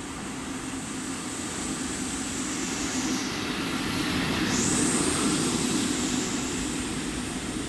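EF65 electric locomotive running light through the station without stopping: a rumble of wheels and motors that swells to its loudest about five seconds in as the locomotive goes by close at hand. A high hiss over it dips and swings back up as it passes.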